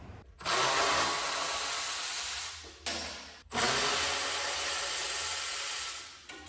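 A power tool run in two long bursts of about two seconds each, with a short pause between, making a harsh hissing, grinding noise with no clear pitch.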